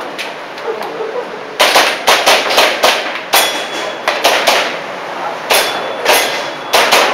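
Airsoft pistol shots fired in quick strings of two or three, about a dozen in all, with short pauses between strings.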